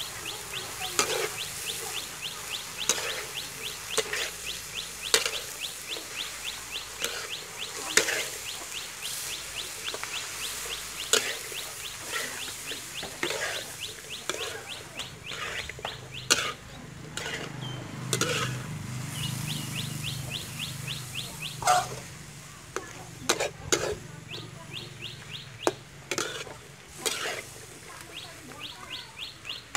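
Metal spatula scraping and knocking against a steel wok about once a second as long beans and beef are stir-fried, over a light sizzle. A fast, even chirping trill runs behind it, breaking off for a few seconds in the middle, and a low hum swells briefly at the same point.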